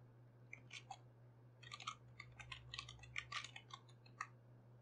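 Faint computer keyboard typing: a quick, uneven run of key clicks that starts about half a second in and stops a little after four seconds.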